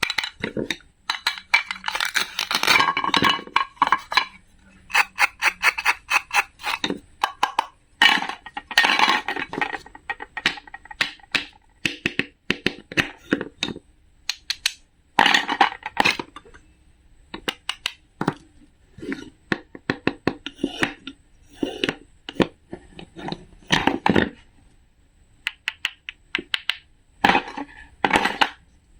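Many small clicks, taps and clattering runs of hard objects being handled, coming in clusters with short pauses between them.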